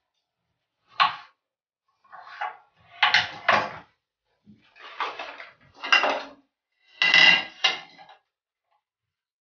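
Kitchen handling clatter: a knife and utensils knocking on a chopping board and chopped tomatoes being scraped off the board into a plate, about half a dozen separate knocks and scrapes.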